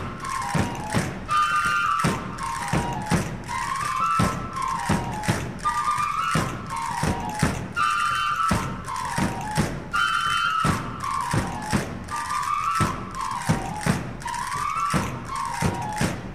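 Traditional El Hierro procession music: transverse flutes playing a short tune that repeats about every two seconds over steady drum beats.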